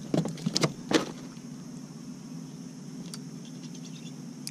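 A few sharp knocks and clatters on a plastic fishing kayak in the first second, then a steady low electric hum.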